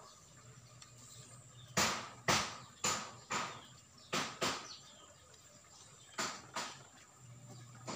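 A rubber band snapping against a green bamboo stick as it is wound tight around it: about eight sharp snaps, six in quick succession a couple of seconds in, then two more after a pause.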